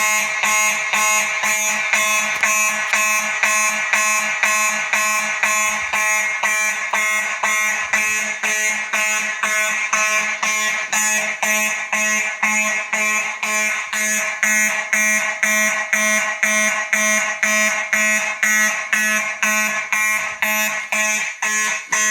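Faraday mechanical fire alarm horns sounding in a fast, even on-off pulse with a harsh buzzing tone, set off by a pulled manual pull station. It starts abruptly.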